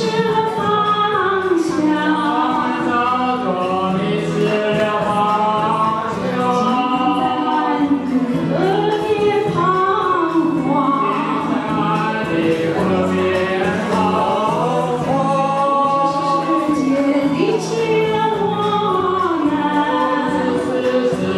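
A woman and a man singing a duet into microphones over a karaoke backing track.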